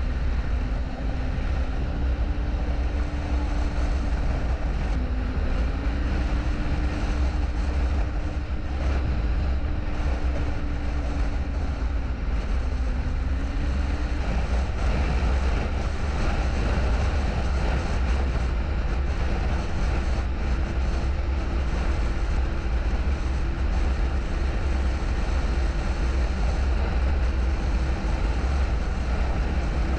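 Snowmobile engine running steadily while riding a trail, its pitch shifting slightly with the throttle in the first half and holding even in the second, over a heavy low rumble.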